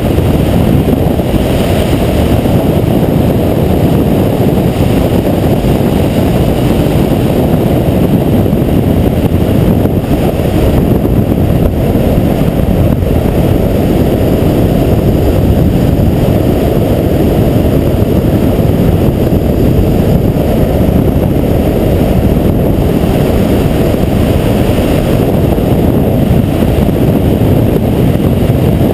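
Porsche Cayman S at speed on an ice track, heard from a camera on the car's nose: a loud, steady rush of wind over the microphone with driving noise underneath, and no clear engine note.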